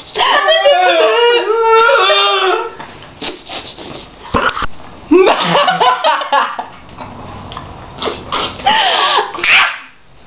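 A woman and a man laughing hard in fits: a long burst at the start, another about five seconds in, and a last one near the end.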